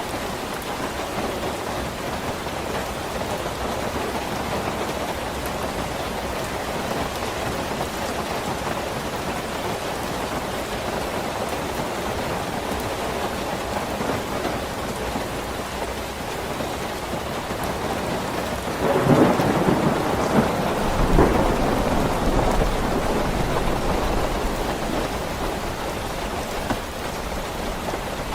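Steady rain falling. About two-thirds of the way through, a sudden louder crack of thunder is followed by several seconds of low rumbling that slowly fades.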